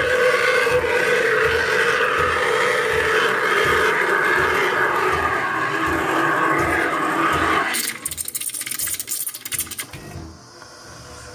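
Espresso machine steam wand hissing steadily with a whistling tone as it froths milk in a stainless steel jug. About eight seconds in the hiss drops away to sputtering crackles, and near the end it stops as the steam knob is turned off.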